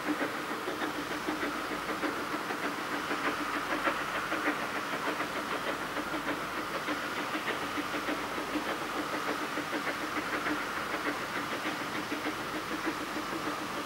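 A narrow-gauge Kerr Stuart 0-4-2 saddle-tank steam locomotive working a train uphill, its quick, steady exhaust beats mixed with the clatter of wheels and carriages on the track.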